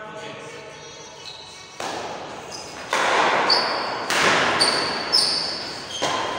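A badminton rally: racket strokes on the shuttlecock about once a second from about two seconds in, each echoing in a large hall, with short high squeaks of shoes on the court floor.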